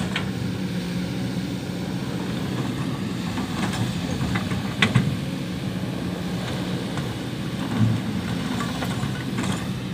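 Heavy-machinery engine running steadily with a low hum, with a few faint knocks about four and five seconds in.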